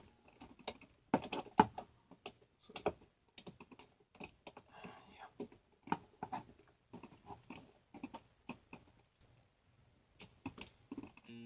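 Irregular small clicks and taps of hand work on a GFCI outlet: wires and a screwdriver against the outlet's plastic body and terminal screws as the wires are connected.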